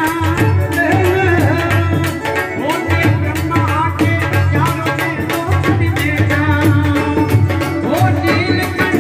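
Live, amplified Hindu devotional music: a sung melody over a fast, steady hand-drum rhythm with instrumental backing.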